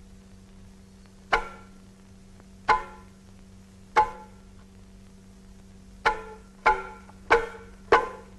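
Dutar, the Turkmen two-stringed long-necked lute, strummed in single strokes that each ring and fade. There are three slow strokes about a second and a quarter apart, then a pause, then four quicker ones about half a second apart.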